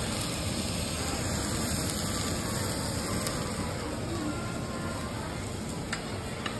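Steady sizzling hiss of meat cooking on a yakiniku table grill, with a couple of light clicks of tongs or dishes near the end.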